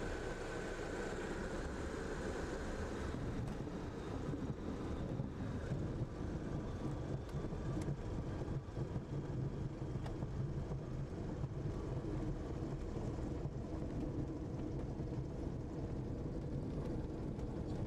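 Cabin noise of a Socata TB-9 Tampico light aircraft rolling along the runway after landing, its engine throttled back: a steady low rumble and rush, with a higher whine that drops away about three seconds in.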